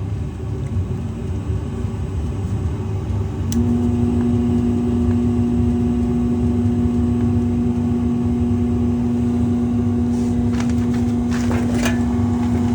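Furnace blower's PSC motor humming steadily without turning, the hum setting in a few seconds in over a low steady rumble. A stalled, humming PSC blower motor points the technician to its run capacitor as the first suspect. A few light clicks near the end.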